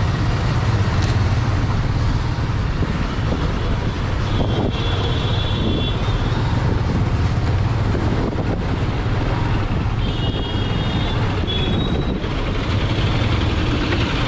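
Motorbike riding through town traffic: its engine runs steadily under a dense rumble of wind on the microphone and the noise of the road around it. Brief high-pitched tones come twice, about four and ten seconds in.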